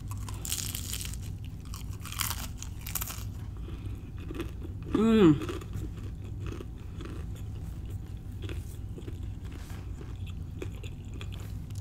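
Biting into the crisp crust of a deep-fried empanada, with loud crunches in the first three seconds, then close-up chewing of the pastry and pork filling. A short hummed "mmm" comes about five seconds in.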